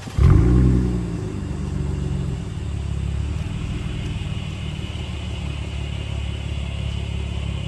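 Lexus engine being started warm: it catches about a quarter second in with a loud rev flare that drops away over the next second or two, then settles into a steady idle with a deep exhaust note.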